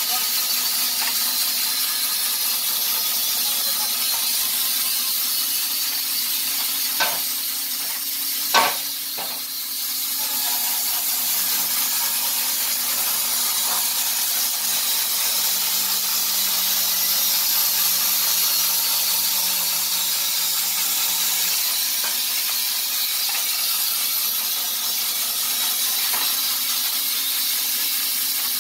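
Wood-Mizer LT15 bandsaw mill running without cutting: a steady hiss, with two short knocks about seven and eight and a half seconds in.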